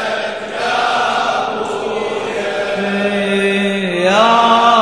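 Crowd of men chanting a Shia Muharram lamentation (latmiya) refrain in unison. From about three seconds in, a single male voice holds a long sung note that slides upward about four seconds in.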